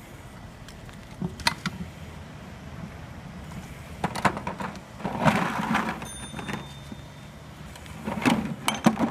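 Handling noise as a firefighter works with tools and PVC pipe pieces on asphalt: scattered knocks and clicks, a short stretch of hissing a little past the middle, and another cluster of knocks near the end, over a low steady hum.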